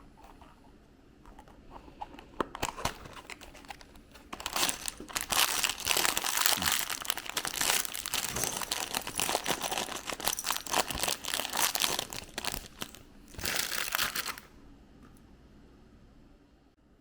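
Packaging crinkling and rustling as it is handled and torn open, faint at first, then loud and continuous from about four seconds in until it stops near the end.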